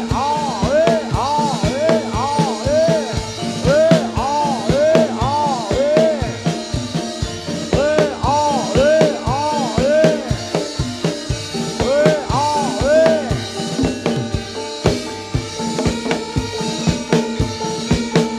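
Jathilan accompaniment music: rapid drumming with a steady held note and repeated notes that swoop up and fall back in pitch.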